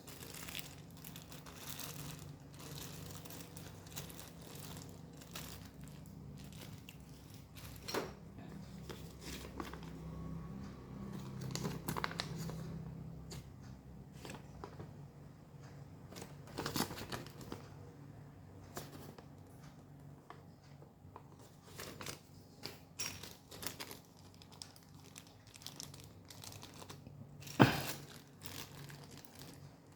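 Packaging being handled and unwrapped: crinkling and rustling with scattered small clicks over a low steady hum, and one sharp knock near the end.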